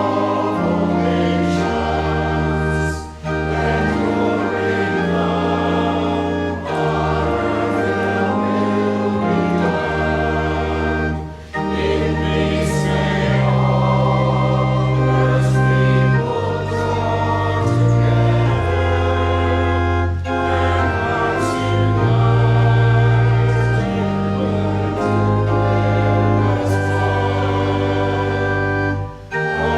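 Voices singing a hymn in parts to pipe organ accompaniment, with held chords and short breaths between phrases.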